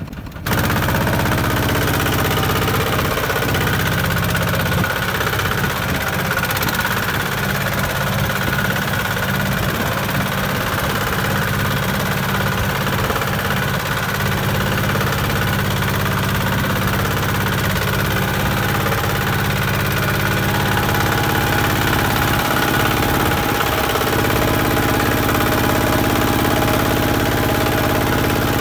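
Kubota walking tractor's single-cylinder diesel engine running steadily under load as the tractor hauls a loaded rice trailer through a muddy paddy.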